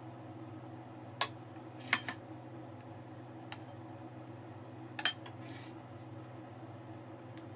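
Metal kitchen utensils clinking against dishes: a handful of sharp clinks with a brief ring, the loudest about five seconds in, over a steady low hum.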